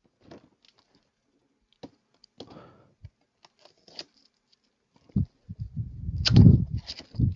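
Packaging and tools being handled during an unboxing: a few scattered light clicks and rustles. About five seconds in, a louder, close-up rubbing and rustling starts.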